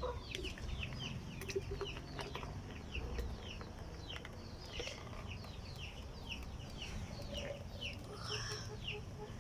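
Chicks peeping: short, high, falling chirps, about three a second, with a few faint knocks.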